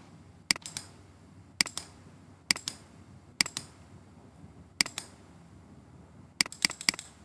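Computer mouse button clicking: about six sharp clicks, most heard as a quick press-and-release pair, spaced about a second apart, then a fast run of four clicks near the end.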